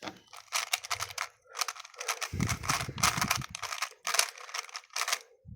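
Rubik's Cube being turned quickly by hand, its layers clicking in rapid, uneven runs as an algorithm is executed. There is a low rumble partway through.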